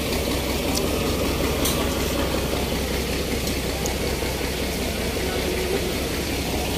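Engine of a six-wheel military cargo truck running steadily at low speed.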